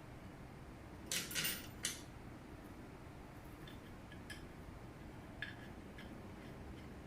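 Parts of a tiered cake plate set clinking and rattling as they are handled: a quick cluster of hard clinks about a second in, then a few faint single taps.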